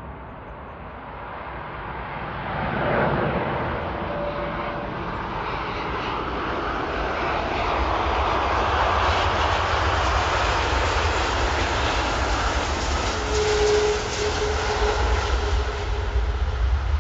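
Jet airliner's engines passing close by. The noise builds over the first few seconds and stays loud, with a deep rumble growing stronger near the end.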